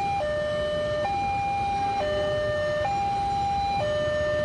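Railway level-crossing warning alarm sounding its two-tone signal, a higher and a lower tone taking turns a little faster than once a second, over the low rumble of a passing train.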